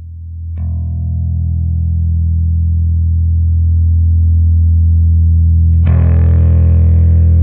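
Electric bass guitar through a tube bass amplifier. A low held note swells in, a note is struck about half a second in and rings out, and near the end a harder, distorted note kicks in and sustains.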